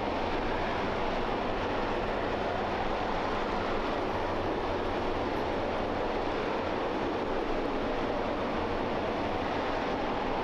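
RS-25 liquid-hydrogen and liquid-oxygen rocket engine firing on a test stand during a hot-fire test: a continuous, even rushing noise with a deep low rumble, holding at the same level throughout.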